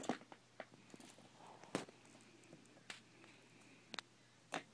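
Kittens playing on a rug: faint rustling and scuffling, with about five sharper taps and knocks spread through.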